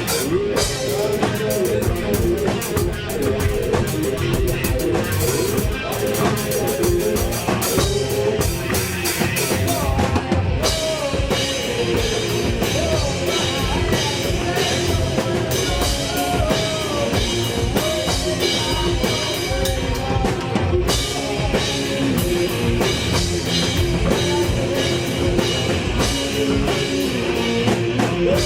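Live rock band playing an instrumental stretch, with drum kit and bass drum driving a steady beat under electric guitar.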